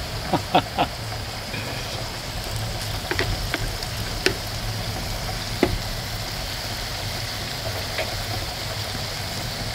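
Potatoes frying in goose fat and a pan of water boiling on a wood-burning tent stove: a steady sizzle with a few sharp pops scattered through.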